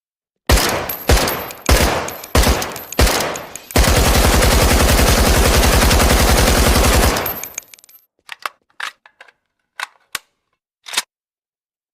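AK-74U carbine firing 5.45×39 mm: about six single shots a little over half a second apart, then a sustained automatic burst of about three and a half seconds that cuts off and echoes away. A few short, quieter clicks and knocks follow near the end.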